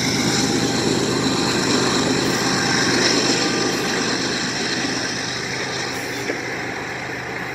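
A freight train moving away from a grade crossing, its noise slowly fading, while the crossing signal's bell rings steadily.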